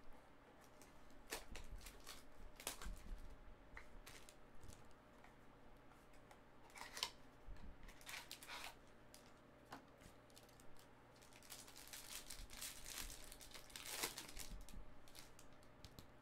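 Cardboard box and foil card pack being opened by hand: faint rustling, tearing and crinkling with scattered clicks, in short spells that grow busier in the last few seconds.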